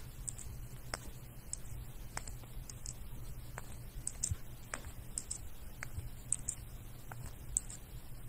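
Faint light clicks and taps scattered irregularly over a low room hum, from a small plastic ball being batted back and forth between a lutino Indian ringneck parakeet's foot and a person's hand.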